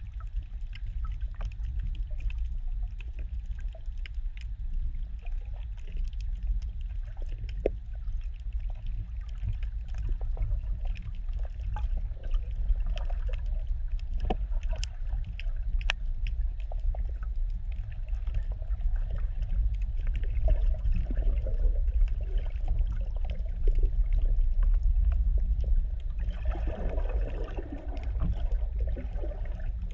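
Muffled underwater sound picked up by a GoPro inside its waterproof housing: a steady low rumble of moving water with scattered sharp clicks. In the last few seconds a gurgling wash of water and bubbles rises over it.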